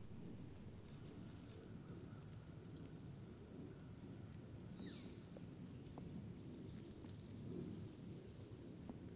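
Faint high bird chirps and calls scattered over a steady low rumble of background noise; one call sweeps downward about five seconds in.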